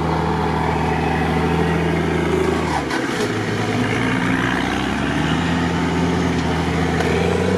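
Engine of the MEGA-UAZ, a UAZ on huge mud tyres, running steadily. Its pitch dips about three seconds in and rises again a couple of seconds later as the truck starts to move through swamp water.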